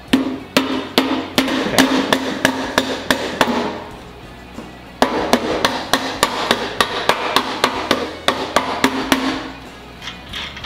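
Rubber mallet tapping a Harley bagger's front axle home through the fork leg and wheel hub. It strikes about three times a second in two runs, with a pause of over a second between them.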